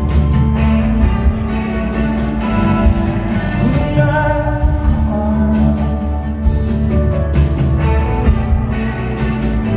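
Live rock band playing: a male singer over electric guitars and drums, heard from the crowd in a large hall.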